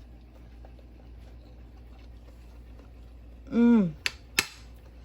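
A short, falling "mmm" of appreciation from a person tasting food about three and a half seconds in, followed by two sharp clicks of cutlery against a plate.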